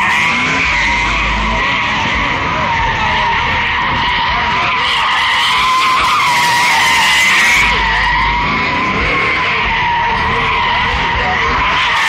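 A Corvette's rear tyres squealing in one long, unbroken screech as the car spins donuts on asphalt, the pitch wavering slightly as it circles.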